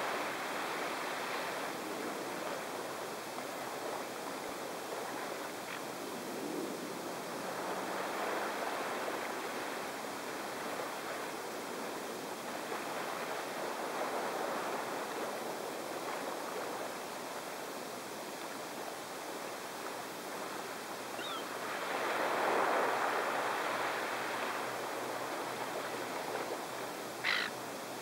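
Steady wash of small waves on the shore, swelling and easing every several seconds, with a gull's single short call near the end.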